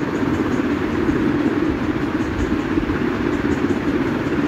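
Spice masala of water, ginger-garlic paste, turmeric and chilli powder boiling hard in a kadai on the stove: a steady low rumble with bubbling.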